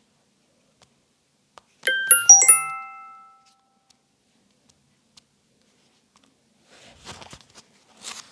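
A short iPhone 13 Pro tone playing from the phone's speaker: a quick run of about five bright chime notes about two seconds in, ringing out over about a second. Faint clicking and rustling near the end.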